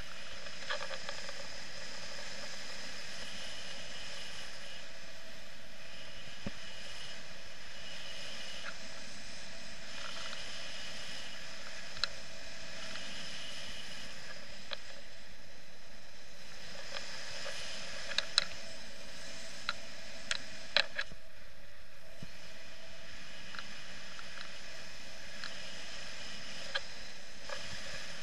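Steady rush of flight airflow over an action camera on a paraglider, heard muffled through the camera housing. A few sharp clicks and taps come through, most of them in a cluster about two-thirds of the way through.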